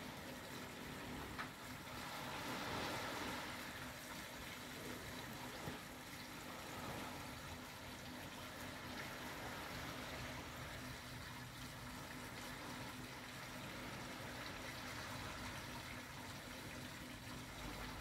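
Small waves washing onto a sandy beach: a faint, steady surf that swells briefly about two to three seconds in.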